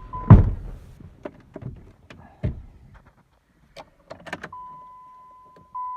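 A heavy slam, the loudest sound, about a third of a second in, as the hood of the old Dodge truck is shut; a second thud around two and a half seconds and a few clicks follow. About four and a half seconds in, a steady high-pitched dashboard warning chime starts, with a short break near the end.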